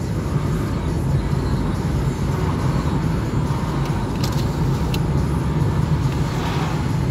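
Steady low rumble of a car driving on the road, heard from inside the cabin: engine and tyre noise without change in pace. Two faint brief clicks come about four and five seconds in.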